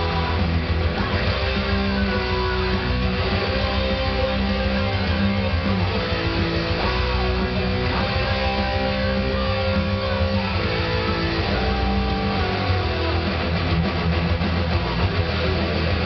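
Electric guitar playing a metal song along with a full-band track of drums and bass, the music dense and steady throughout.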